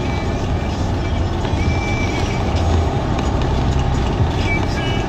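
Steady low rumble of engine and road noise inside a moving vehicle's cabin, heard through a phone's microphone.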